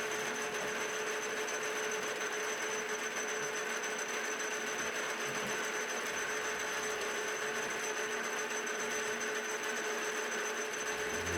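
CNC-converted milling machine running under program control: a steady mechanical whir with a constant high whine.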